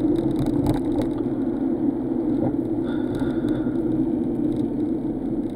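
Steady low drone of engine and road noise inside a moving car's cabin.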